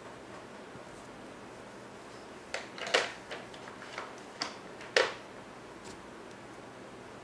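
A run of short, sharp clicks and knocks from wax crayons being put down and picked up on a table while yellow is swapped for green, about six in two and a half seconds; the loudest come about three and five seconds in.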